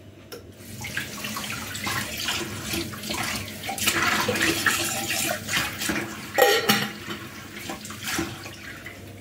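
Water running from a kitchen tap into a sink, heaviest in the middle and easing off after about six seconds, with a couple of knocks of a pot or kettle against the sink.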